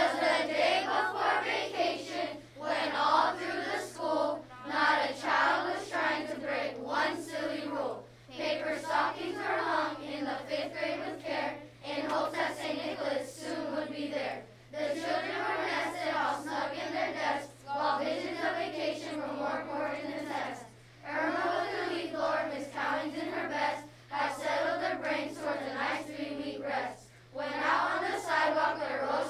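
A group of elementary-school children singing together as a choir, in phrases separated by short breaths, with a steady low hum underneath.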